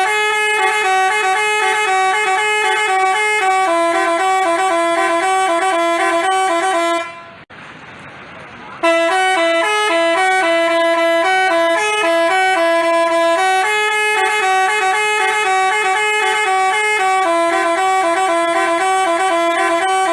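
Telolet basuri multi-tone horn playing a melody in stepped, held notes. It plays two long phrases with a break of about two seconds near the middle.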